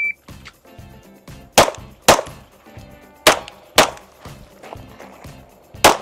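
Electronic shot timer's start beep right at the start, then pistol shots fired in pairs: two about a second and a half in, two more a second and a half later, and one more near the end, all over background music with a beat.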